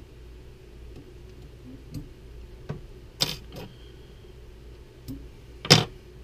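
Sharp clicks and taps of small metal fly-tying tools handled at the vise while the thread is whip-finished and trimmed: about half a dozen separate clicks over the last four seconds, the loudest near the end, over a low steady hum.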